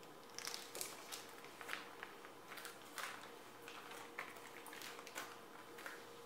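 Filled Ziploc freezer bags crinkling and rustling as hands press the zipper shut and lay the bags on a wooden cutting board: a run of quick, soft plastic crackles and light taps. A faint steady hum runs underneath.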